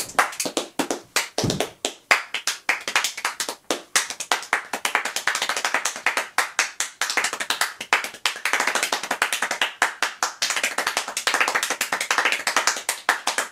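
One person clapping his hands extremely fast in a speed-clapping demonstration: a dense, unbroken stream of sharp claps, many each second, kept up without a pause.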